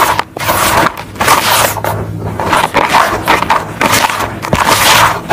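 Hands raking and crumbling dry, crunchy red dirt full of small pebbles in a plastic tub: a run of gritty scraping and crunching strokes, several a second.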